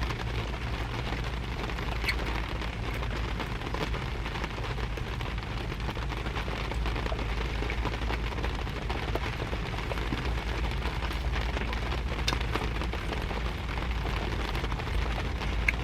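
Steady rain falling on a car, heard from inside the cabin, with a few separate drop ticks standing out.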